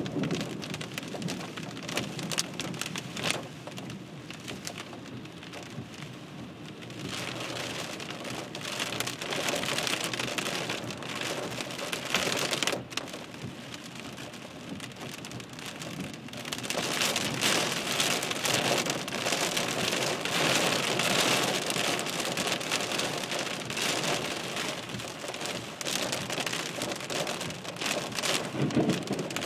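Heavy rain drumming on a car's windshield and roof, heard from inside the car, swelling and easing in waves with a dense patter of drops. A brief low rumble comes near the end.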